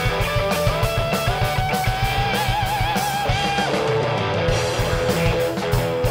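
Live rock band playing with no singing: an electric guitar lead over a steady drum beat and bass, with a held note that wavers in pitch midway.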